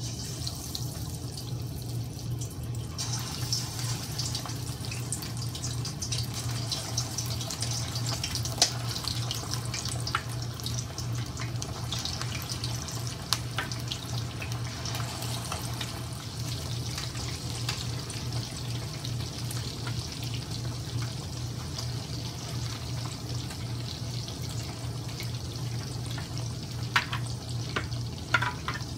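Marinated chicken wings deep-frying in hot oil in a wok, sizzling steadily. The sizzle grows louder about three seconds in. A steady low hum runs underneath, and there are a few light clicks near the end.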